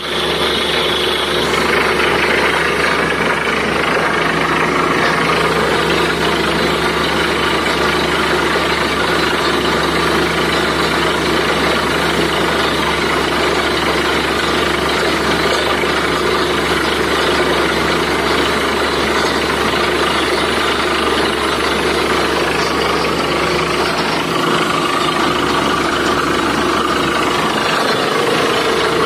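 Borewell drilling rig running steadily and loud, its engine and drilling machinery going without a break while water and slurry blow up out of the bore and splash down. Water has been struck at about 90 feet.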